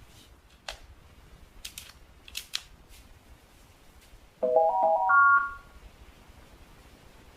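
Samsung CW-21Z503N CRT television's startup sound: a few short clicks, then a brief rising electronic jingle of paired beep tones stepping upward over about a second.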